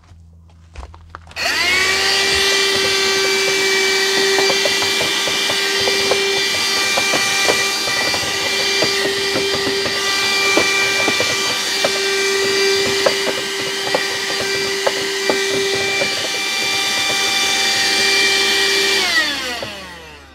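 Cordless handheld vacuum running steadily while cleaning out a truck's empty air filter box, with small ticks of debris being sucked up. It switches on about a second and a half in and winds down with falling pitch near the end.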